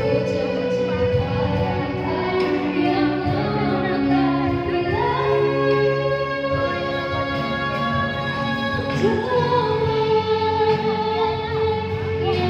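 A woman singing held, gliding notes over a live band of electric guitars, drum kit, keyboard and violin.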